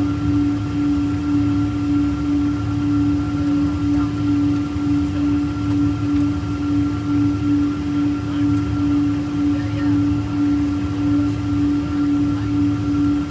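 Boeing 777-200 cabin noise while taxiing: a steady jet-engine drone with a low hum that throbs about twice a second, and fainter higher tones above it.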